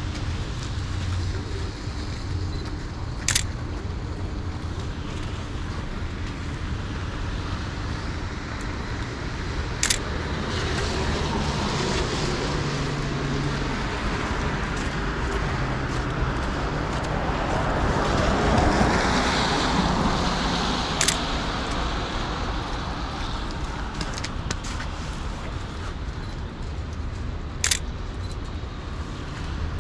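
Downtown street traffic noise, with a vehicle passing about two-thirds of the way through. Four single sharp clicks of a Sony A7C camera shutter, several seconds apart.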